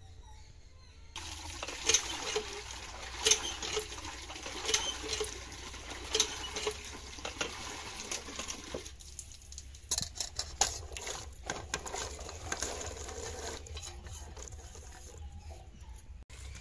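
Water gushing from an iron hand pump into a metal pot, with a knock from the pump handle about every second and a half. Partway through, the pumping gives way to splashing and clicking as a hand stirs and washes chopped greens in the pot of water.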